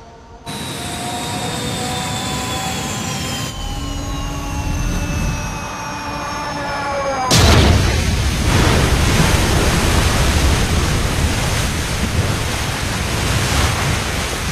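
Sound effects of a jet airliner going down: engine noise with several whining tones falling slowly in pitch. About seven seconds in, a sudden loud rush of noise starts as the plane plunges into the sea.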